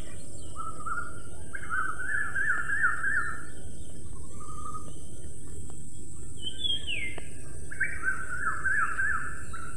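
Several songbirds singing in repeated trilling, warbling phrases, some with short high notes sliding down, over a steady hiss with a constant high-pitched tone.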